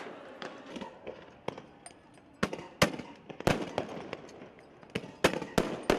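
A rapid, irregular string of sharp bangs and pops, about a dozen, from police firing tear gas and rubber bullets, with the loudest reports about three seconds in and in a cluster near the end.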